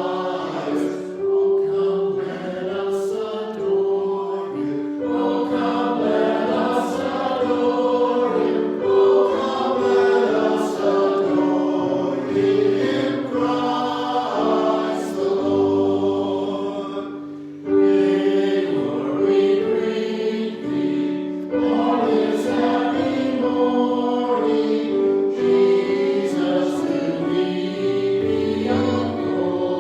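A choir singing a sacred piece in long, held phrases. The singing fades briefly about two-thirds of the way through, then a new phrase comes in.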